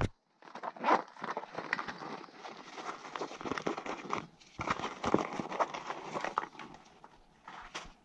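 Close rustling and handling noise, full of small clicks and crackles. It comes in two stretches with a short pause about four seconds in, and thins out near the end.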